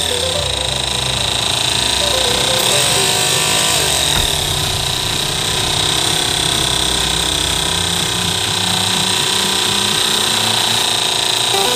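12-volt DC mini air compressor running steadily, its small motor-driven piston pump building pressure shown on its dial gauge.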